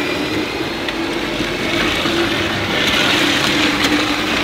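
Motor of a child's ride-on toy pickup truck running as it drives over asphalt, a steady hum over outdoor background noise.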